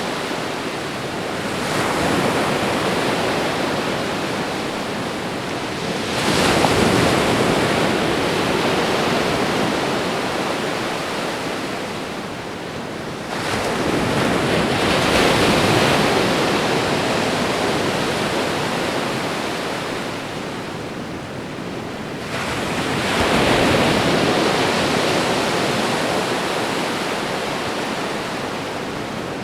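Ocean surf washing on a shore: a continuous rush of water that swells four times as waves break and then fades back as each recedes.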